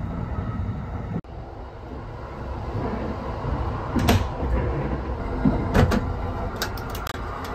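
Steady low rumble of the moving train, with a restroom door being opened by hand: a knock about halfway through, then several sharp clicks of its latch and frame near the end.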